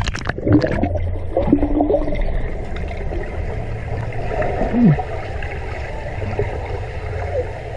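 Muffled churning and bubbling water heard through a submerged camera, from people kicking and pushing through the water, with scattered small clicks.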